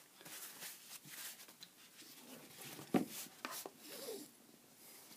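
Glued bookcloth being rubbed and smoothed down over the tray's board as it is turned in, a faint intermittent rubbing and rustling with small clicks and one sharp tap about three seconds in.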